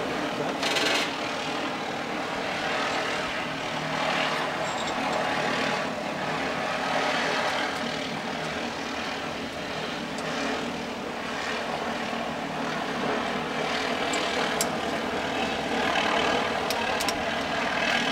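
A steady mechanical drone from a running machine, with a few sharp clicks near the end.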